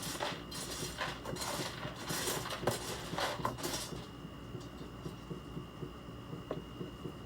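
Irregular clinking and ticking in bunches over the first four seconds, then a few single ticks, over a faint steady high-pitched whine. The owner calls the noise annoying and suspects the water heater, though she is not sure.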